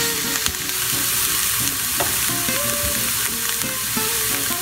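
Diced red onion sizzling as it fries in a little oil in a nonstick skillet, with a wooden spoon stirring it and clicking against the pan in the first couple of seconds.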